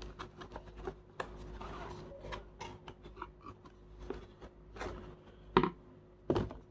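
Unboxing handling: papers and small parts being picked up and set down, with light rustling and clicking and two sharper knocks near the end.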